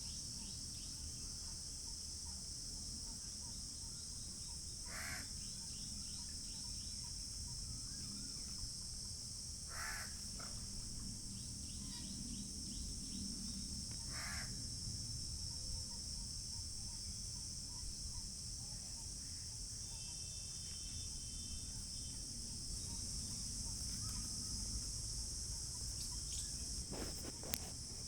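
Steady high-pitched chirring of insects, with a crow cawing three times about every five seconds, over a low background rumble.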